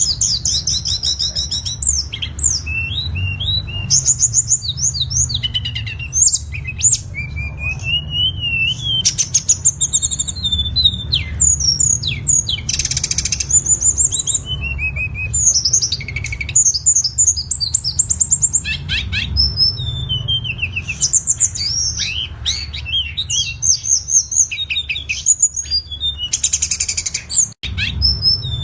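Tledekan songbird singing: rapid high chirps, trills and sweeping whistled notes in quick phrases with brief pauses, over a steady low hum.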